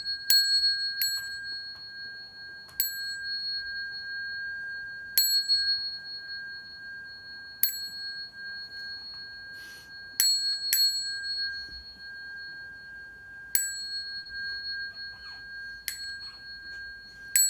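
Small handheld Buddhist bowl bell (yinqing) struck with a metal rod about ten times to open a lecture. Each strike is a sharp clink that rings on as a steady high tone. The strikes come two to three seconds apart, with quick pairs near the start and about ten seconds in.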